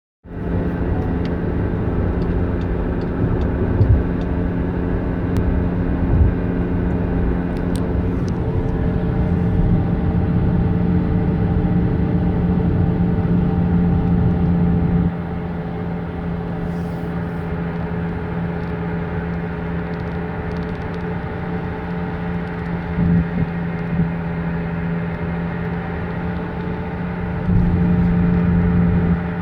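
Skoda Superb Mk2 2.0 TDI on the move with a steady droning hum over road rumble. The low rumble drops about halfway through and comes back near the end, while the droning note carries on unchanged. The owner has ruled out tyres, engine and gearbox and suspects a wheel bearing.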